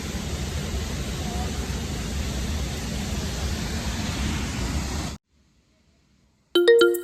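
Steady rushing roar of a large waterfall that cuts off suddenly about five seconds in. After a short silence, a chiming music track starts near the end.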